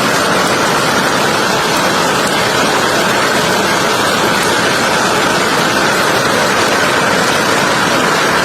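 Heavy rain and hail falling, a steady dense hiss with no separate impacts standing out.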